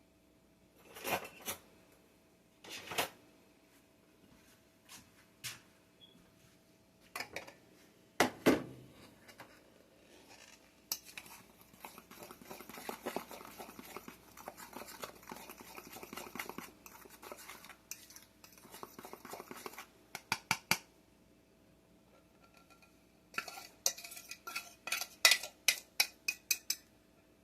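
Kitchen utensil clinking and scraping against a mixing bowl while batter ingredients are mixed: a few separate clinks, then a stretch of steady stirring, then a quick run of taps against the bowl near the end.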